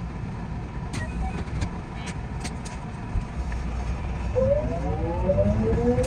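JR West 207 series electric commuter train pulling away: a low steady rumble with a few sharp clicks, then, about four seconds in, the rising whine of its VVVF inverter-driven traction motors as it starts to accelerate.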